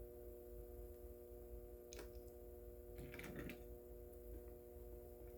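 Near silence: faint steady room hum, with a few faint clicks about two seconds in and again around three seconds in.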